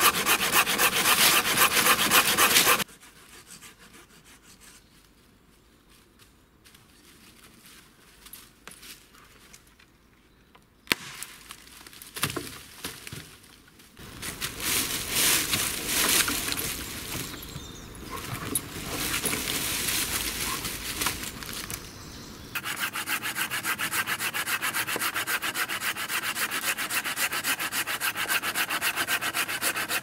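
Hand saw cutting through dead wood in quick, even back-and-forth strokes, in separate bouts: a short spell at the start, another from about halfway, and a steady run of regular strokes through the last third, with a quieter stretch in between.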